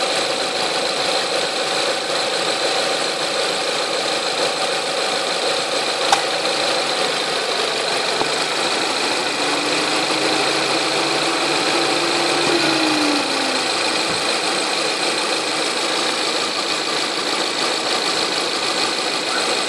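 Renault Mégane III running steadily, with a steady high whine among its noise; this is the extraneous noise the owner is recording. A single click about six seconds in, and a faint tone rising and then falling between about nine and fourteen seconds.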